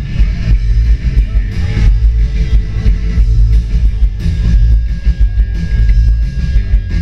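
Live rock band playing loud, with electric guitar, bass and drum kit; the recording is boomy and heavy in the bass.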